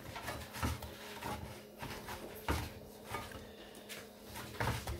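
Hands kneading a stiff samosa dough in a metal bowl: irregular dull thumps and rubbing as the dough is pressed and turned against the bowl.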